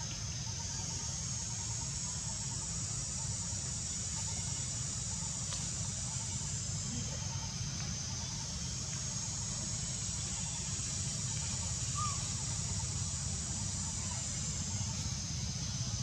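Outdoor forest ambience: a steady high-pitched insect drone that slowly swells and dips, over a low steady rumble.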